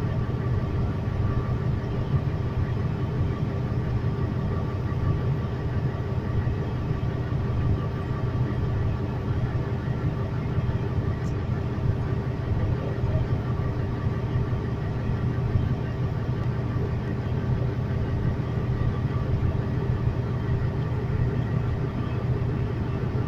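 Large diesel haul truck engine idling steadily, heard from inside the cab, a constant low rumble with a steady hum.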